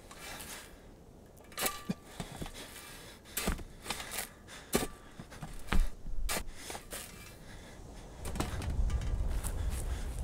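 A steel spade striking and scraping into dry, stubbly soil several times, each stroke a short crunch. Then, from about eight seconds in, a steadier, louder rustling and scraping as hands scoop out loose earth.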